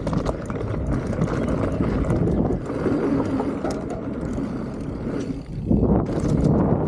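Wind rushing over an action camera's microphone as a mountain bike rolls down a dirt trail, with tyre rumble and quick clicks of the bike rattling. It drops briefly about five and a half seconds in, then comes back loud.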